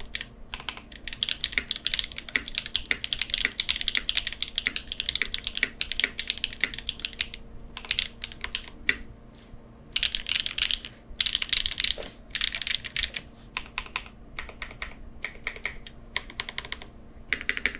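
Typing on a Cycle 8 mechanical keyboard with lubed Jieum V2 switches, KKB Mixed Light keycaps and no case foam: rapid runs of keystrokes broken by short pauses. A faint steady hum sits underneath.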